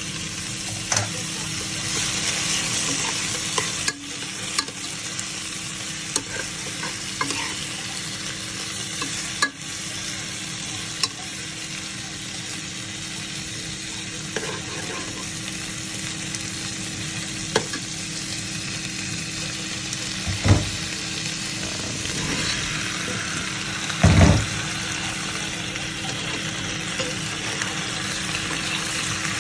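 Beef, onion and garlic sizzling as they stir-fry in a nonstick pot, with a metal spoon scraping and clicking against the pan now and then. Two heavier thuds come about two-thirds of the way through, as potato chunks are tipped into the pot.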